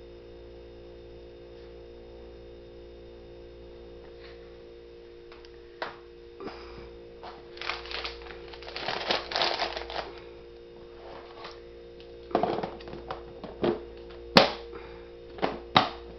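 Frozen food packages being handled: plastic wrapping rustling, then a string of sharp knocks and clicks as items are set down, the sharpest a little before the end. A steady low hum underlies it all, alone for the first few seconds.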